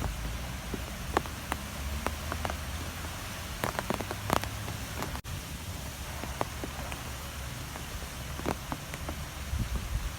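Strong wind blowing with a steady low rumble and hiss, scattered with many small sharp ticks and taps. The sound drops out for an instant about five seconds in.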